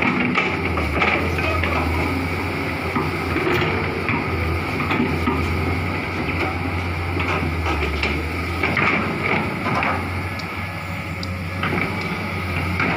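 Komatsu PC200 hydraulic excavator's diesel engine running with a steady low drone, with scattered knocks and clatter as the bucket works among felled branches.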